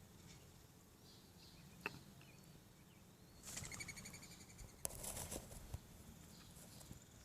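Faint background hiss with a sharp click, then about halfway a short, high, rapidly pulsed chirp lasting under a second, followed by a brief rustling scuffle with two sharp clicks, from ring-necked doves at the nest during feeding.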